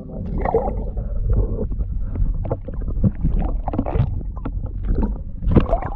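Irregular knocks, splashes and handling noise in a kayak as a hooked smallmouth bass is landed, over a low rumble of wind and movement on the microphone, with a louder flurry near the end.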